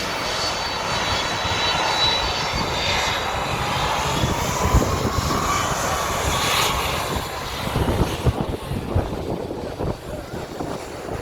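Departing airplane's engines at takeoff power: a loud, steady rush with a high whine that fades after about eight seconds.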